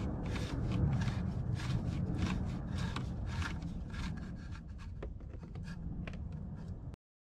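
Rubbing and scraping of a Porsche Cayenne Turbo's oil filter housing cap being unscrewed, with scattered small clicks. It grows fainter and cuts off suddenly near the end.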